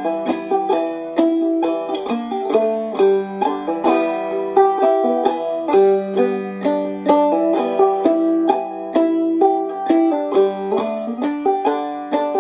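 Five-string banjo played clawhammer style in the key of G, tuned to standard open G (gDGBD): a steady run of downstruck notes and brushed chords, each note sharp at the attack and quickly fading.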